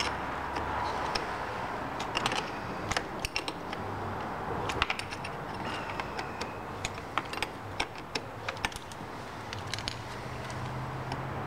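Small steel wrench clicking and clinking on the positive battery terminal's clamp bolt as it is loosened and the cable end worked off: irregular sharp metal ticks and taps, several in quick clusters.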